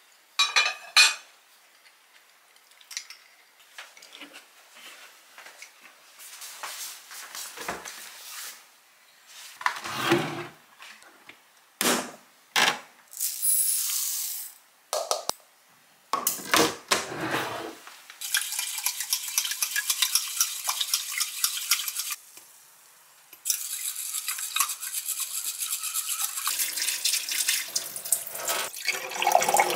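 Kitchen sounds: a ceramic plate clattering near the start, then dry rice scooped and poured into a glass measuring cup in short rushes, then tap water running steadily into a steel sink as the rice is washed and the cloudy rinse water poured off.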